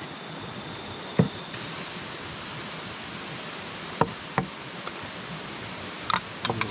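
Sharp knocks of a large knife on a wooden cutting board, once about a second in and twice around four seconds in, then a metal pot lid set down on the board with a short clatter near the end, over a steady background hiss.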